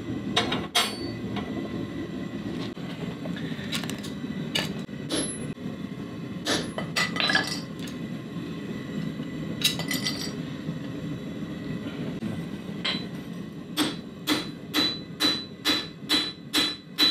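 Irregular metal clinks and clatters as steel skull coasters are handled with tongs, over the steady running of the forge burner. In the last few seconds, a hammer strikes a coaster on a silversmith's stake anvil about three times a second to flatten it, each blow ringing.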